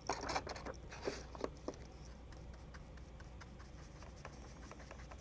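Paint being mixed on a palette: a few soft scrapes and small taps in the first second and a half, then quieter, over a faint steady low hum.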